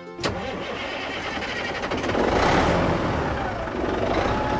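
Toy tractor and its plastic trailer moving over sand: a steady rough rumble that swells a little around the middle.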